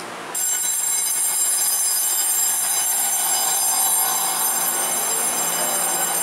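Taiwan Railways EMU3000 electric train rolling slowly along the platform, with a loud, steady, high-pitched ringing that starts suddenly about half a second in and holds at one level.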